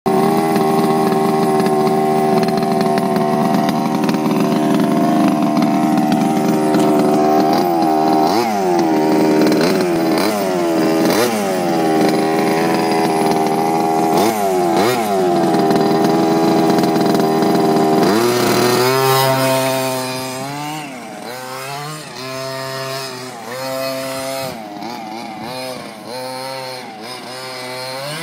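23 cc two-stroke petrol engine of a 1:5-scale RC touring car running at a high, steady pitch, dipping and picking up again several times. About two-thirds of the way through it revs up, then turns quieter, rising and falling in pitch over and over.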